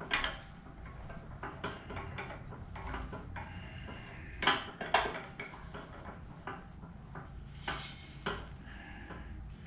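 Steel transmission parts and hand tools clinking and knocking against each other while a Mustang T5 gearbox is being taken apart, with a few louder clanks about halfway through and a low steady hum underneath.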